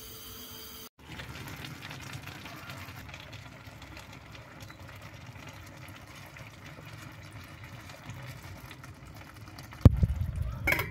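Cooking oil poured from a plastic bottle into a pot of cabbage rolls, a faint steady trickle and splash. About a second before the end comes a sharp loud knock, then louder clattering.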